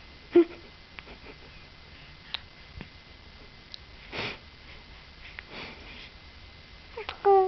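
Baby sniffing and snuffling while trying to sneeze. There are two short breathy sniffs in the middle, a brief high squeak about half a second in, and a short pitched baby vocal sound near the end.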